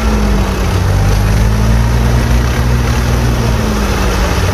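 Fiat 480 tractor's diesel engine working under load. Its pitch sags about half a second in and again near the end, each time pulling back up.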